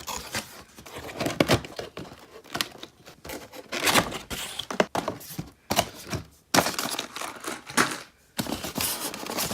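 Packaging being handled: crinkling and tearing sounds with scattered knocks, in irregular bursts.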